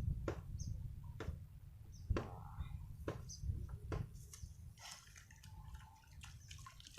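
Scattered small clicks and water drips, several in quick succession at first and then more spread out, over a low rumble.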